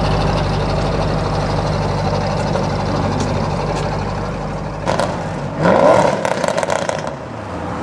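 Audi RS6 C7's twin-turbo V8 through a decatted Milltek exhaust, running steadily, then revving briefly about five seconds in with a rising pitch and a run of sharp crackles before it settles back.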